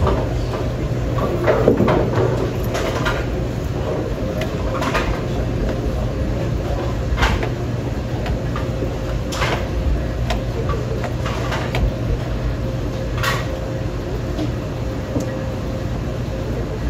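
Bowling alley ambience: a steady low rumble of lane machinery and rolling balls, with sharp knocks and clacks from other lanes every second or two.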